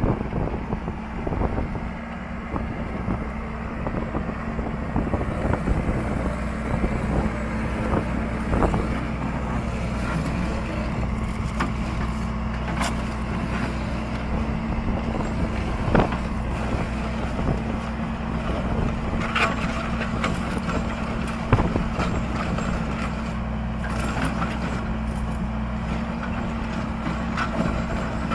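Engine of a heavy construction machine running steadily at one speed, with a few sharp knocks, the loudest about halfway through.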